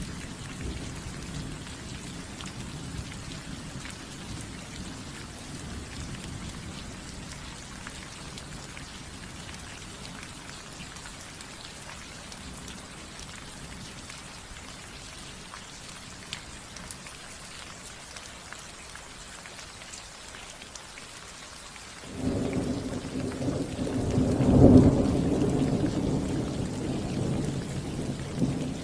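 Steady rain falling on a roof. About 22 seconds in, a roll of thunder starts suddenly, peaks a couple of seconds later as the loudest sound, and rumbles on, slowly fading.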